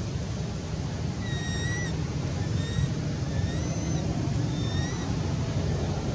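Infant macaque giving four short, high-pitched cries, the first and longest about a second in, over a steady low rumble.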